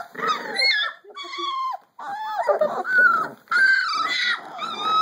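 Three-week-old Labrador retriever puppies whining, a string of short high-pitched calls that slide up and down in pitch.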